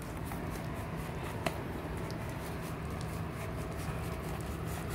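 Glittery slime being stirred and scraped in a plastic tub with a silicone spatula: faint wet squelches and ticks, with one sharp click about a second and a half in, over a low steady hum.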